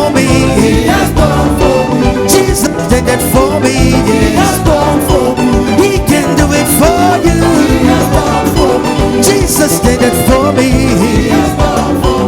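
Live band playing upbeat African gospel praise music with a steady, danceable beat and a melodic lead line.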